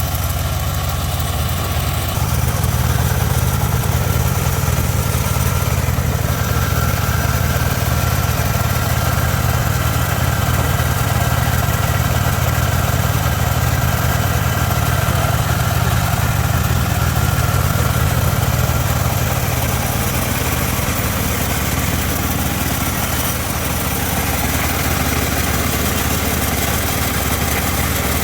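Homemade bandsaw sawmill running steadily with a deep engine drone, a faint higher whine coming in for a stretch in the middle.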